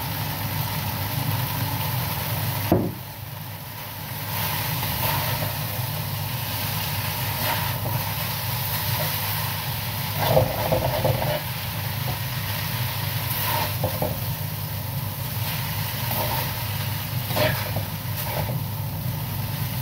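Rice noodles stir-fried in a metal wok over a gas burner: light frying sizzle, with the spatula scraping and knocking against the wok every few seconds. A steady low hum, most likely the range-hood fan, runs underneath.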